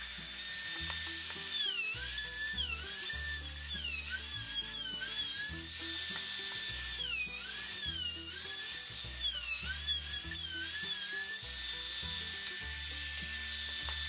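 Handheld electric wood router running, its high whine dipping in pitch again and again as the bit bites into a wooden wagon spoke and then recovering speed, over background music with a bass line.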